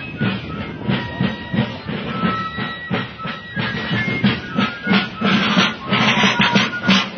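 Fife and drum corps playing a march: steady drum beats under a shrill fife tune, growing louder about six seconds in as the players come closer.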